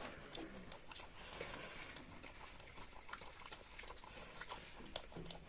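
Pigs moving about in their pen: faint, scattered clicks and scuffs of trotters on the floor.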